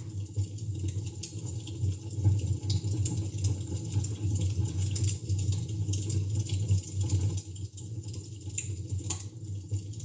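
Wood fire in a fireplace crackling, with frequent small sharp pops and snaps over a steady low rumble.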